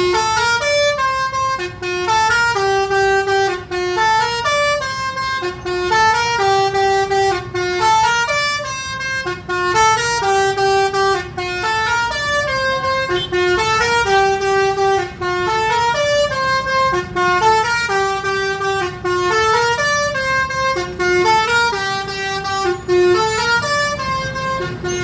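Bus's Basuri telolet multi-tone electric horn playing a melody: a string of clear horn notes stepping up and down in a tune that repeats over and over.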